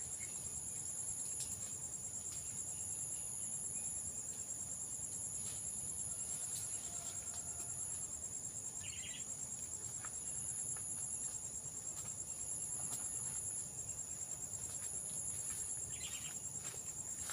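Insect chorus: a steady high trill, overlaid by a higher buzz that switches on and off about once a second. Two short chirps stand out, about halfway through and near the end.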